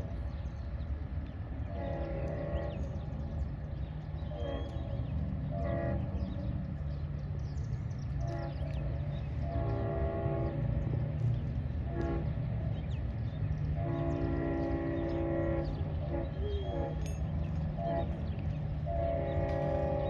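Diesel freight locomotive's multi-chime air horn blowing a run of short toots and longer held blasts for a string of grade crossings, over the low rumble of the passing train. The longest blasts come about two-thirds of the way through and again near the end.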